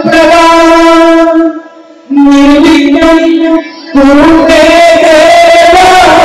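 Indian devotional song in Carnatic style: a singer holds long, wavering notes, breaking off briefly twice.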